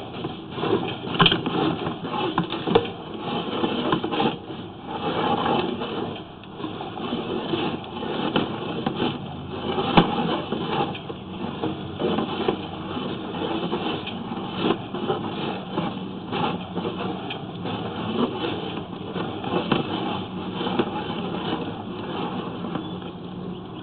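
Sewer inspection camera being pushed through a PVC sewer line: irregular knocking, clicking and scraping as the camera head and push rod move along the pipe.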